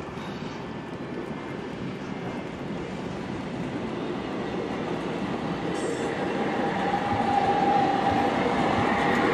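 HO scale model train cars rolling along the track, a steady running noise that grows louder as the cars pass. A high steady tone joins about seven seconds in, like wheels squealing on the rails.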